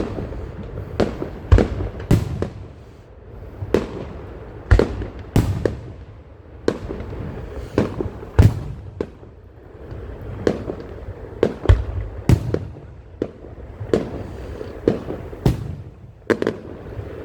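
Fireworks show heard from the crowd: a string of sharp bangs from bursting aerial shells, irregular and about one or two a second, over a continuous low rumble.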